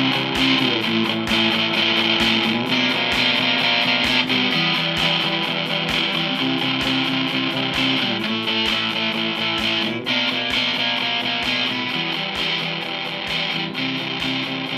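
Instrumental rock music: guitar chords changing every couple of seconds over a steady beat, with no vocals. It grows slightly quieter toward the end.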